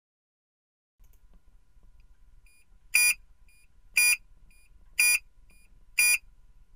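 After about a second of silence, a series of electronic beeps: four loud, high-pitched beeps exactly one second apart, each followed half a second later by a fainter short beep.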